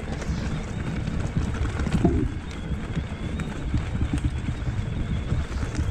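Mountain bike riding fast over a rough, stony trail: a constant low rumble with a dense, irregular rattle of knocks as the tyres hit stones and the bike jolts, picked up by a handlebar-mounted camera.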